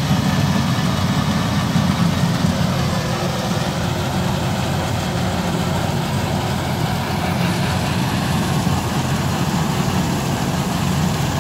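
Kubota tracked rice combine harvester's diesel engine running steadily as the machine works through deep paddy mud.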